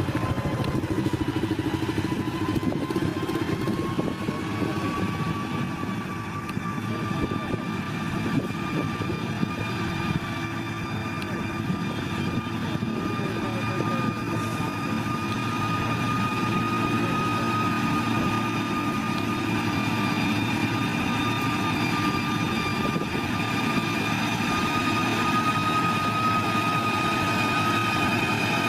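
Heavy diesel construction machine running steadily, a dense low engine rumble under a steady high whine that rises a little in pitch over the first several seconds and then holds.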